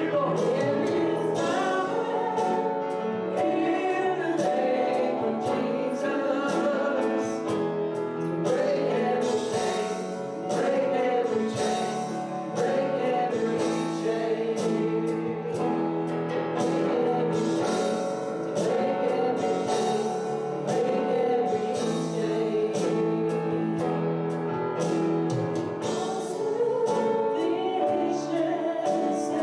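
A group of voices singing a hymn with instrumental accompaniment, held chords under the moving melody.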